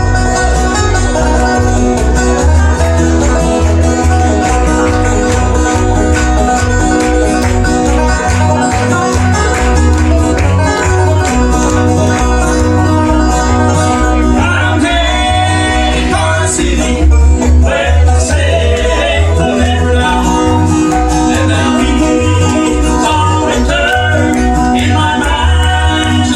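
Bluegrass band playing live, banjo and guitar over a steady bass line keeping a regular beat.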